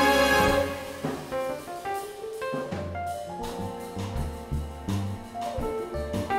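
Live symphonic jazz: the big band and orchestra hold a loud chord that cuts off about half a second in. A quieter jazz passage follows, with piano, double bass and light drums.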